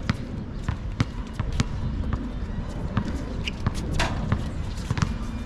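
Basketball being dribbled on an outdoor hard court: a run of sharp, irregularly spaced thumps.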